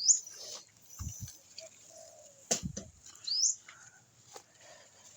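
A bird calling with short rising chirps, twice, about three seconds apart, over a few soft knocks and rustles.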